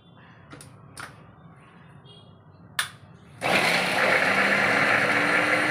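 Small electric food chopper with a push-down top starting about three and a half seconds in and running steadily as it chops onion, green chilli and coriander. A few sharp clicks come before it starts.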